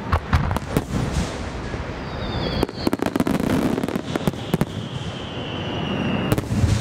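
Aerial fireworks bursting in a rapid run of bangs and crackling reports, with a low rumble swelling near the end. High whistling fireworks sound twice, the second longer and slowly falling in pitch.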